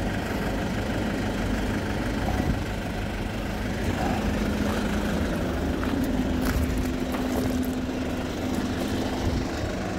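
A vehicle engine idling steadily: a low rumble with a constant hum.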